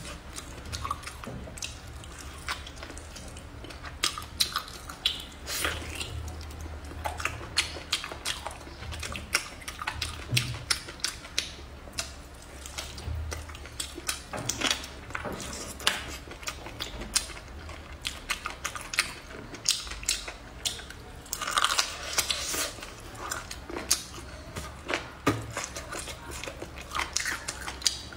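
A person chewing and biting braised pig's trotter, with a steady irregular stream of short mouth clicks and smacks.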